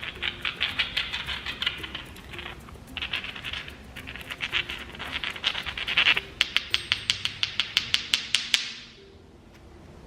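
A pair of Moqui marbles, small iron-oxide sandstone concretions, rubbed together in the hands, making a dense chirping clatter of small clicks. A little past the middle they are tapped together quickly, about eight sharp clicks a second and the loudest part, before stopping near the end.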